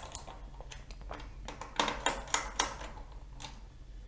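Small sharp metallic clicks and ticks of a screwdriver tightening the heat-sink screws on a laptop's motherboard, a quick run of several ticks in the second half.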